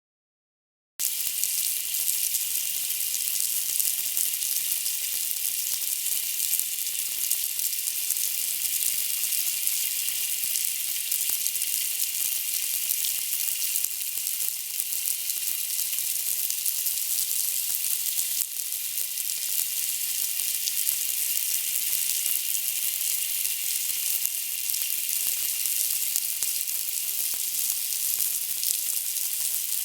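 Snapping shrimp crackling underwater, picked up by a hydrophone: a dense, continuous crackle of countless tiny snaps that starts about a second in and holds steady.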